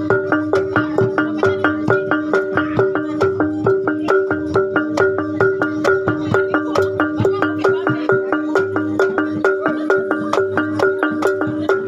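Music played on tuned struck percussion: a steady rhythm of about three strikes a second over repeated pitched notes.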